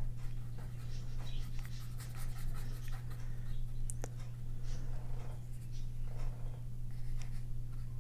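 Paintbrush dabbing and stroking acrylic gouache onto sketchbook paper in a series of short, irregular strokes, over a steady low hum.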